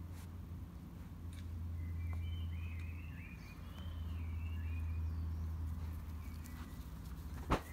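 Garden ambience: a steady low rumble under faint bird chirps a couple of seconds in, with one sharp click near the end.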